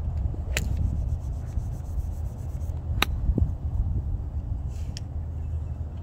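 A golf iron striking a ball with one sharp crack about three seconds in, with a fainter click just over half a second in. A steady low rumble sits under it throughout.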